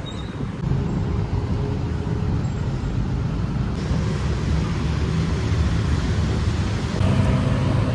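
Steady low rumble of road traffic with a faint engine hum, growing a little louder about seven seconds in.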